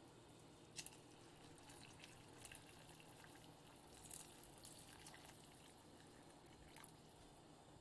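Water poured from one pot into a pot of soup, heard only faintly, with a few soft clicks.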